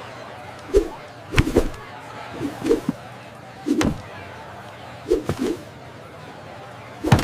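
A series of about six short knocks and thumps, spaced roughly a second apart.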